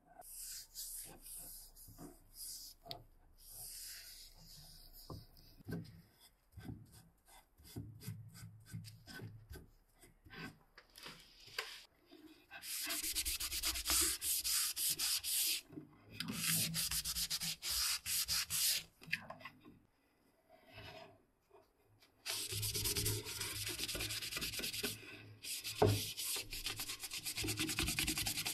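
A hand-held pad rubbed fast back and forth along an oiled wooden axe handle, working the oil finish into the wood. It starts with quiet, scattered strokes, and from about halfway in there are four loud spells of brisk rubbing, each a few seconds long.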